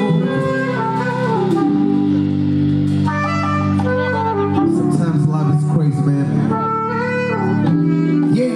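Live band playing an instrumental passage during a sound check: held chords under a moving lead melody, with no singing.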